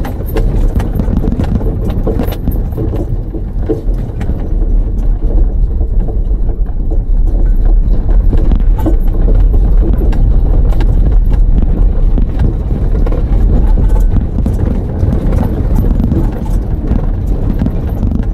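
A car driving over a rough dirt track: a steady low rumble with frequent knocks and rattles from the bumps, louder through the middle.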